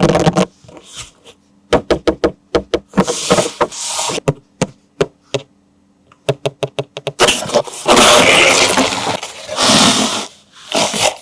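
Hands unboxing toys and handling plastic parts and packaging: a run of sharp clicks and taps, with longer stretches of rustling and scraping.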